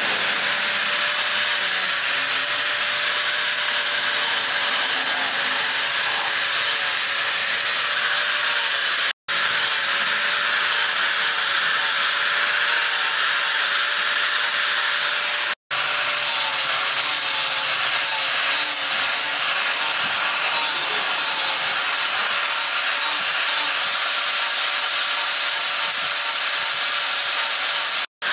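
DCA electric angle grinder with a sanding pad running steadily against a wooden knife handle: a steady motor whine over a loud rasping hiss of the pad on the wood, broken by three brief silences.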